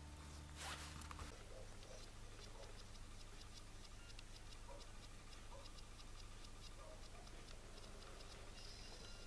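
Faint room tone with a soft click about a second in, then a light, regular ticking, about three or four ticks a second.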